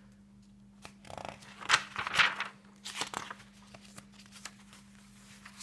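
Pages of a handmade junk journal being turned and handled: stiff paper and vellum rustling and crinkling in a few short bursts, loudest about two seconds in.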